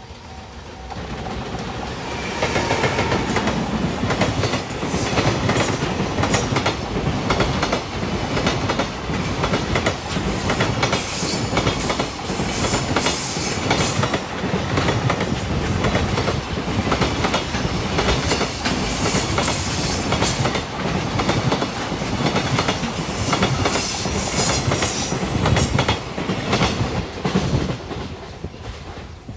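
Long JR freight train hauled by an EF210 'Momotaro' electric locomotive passing close by: the wagons' wheels clatter over the rail joints in a fast, continuous clickety-clack, with a high wheel squeal at times in the second half. The noise builds up over the first two seconds and dies away near the end.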